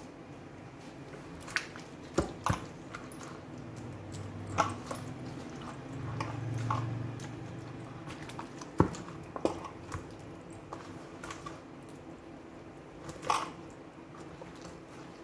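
Hands squelching and slapping a thick yogurt-and-spice marinade into a raw leg of mutton in a plastic tub, with scattered wet smacks and knocks, the loudest about nine seconds in.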